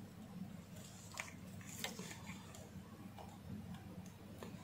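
Faint small clicks and scrapes of multimeter test probes being set on a circuit board to check a driver transistor, a few separate ticks over a low room hum.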